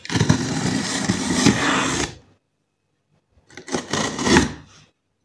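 Cardboard shipping box being opened by hand: packing tape ripped and cardboard rasping. There is a long burst of about two seconds, then a sudden silence, then a shorter burst.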